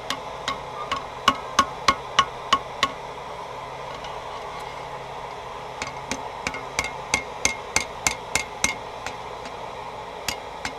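Hand hammer striking hot rebar on an anvil, flattening one side of the clamping area of a pair of bolt tongs. The blows come about three a second, each with a brief metallic ring. There is a run of blows, a pause of about three seconds, a second run, and the blows start again near the end, over a steady rushing background noise.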